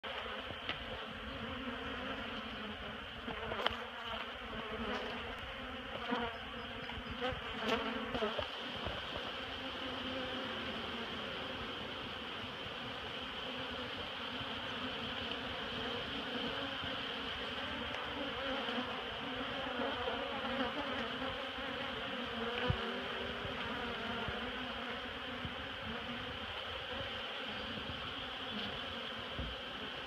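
A large mass of honeybees buzzing steadily around exposed honeycomb from a colony living in a wooden bird house. A few sharp knocks stand out between about three and eight seconds in.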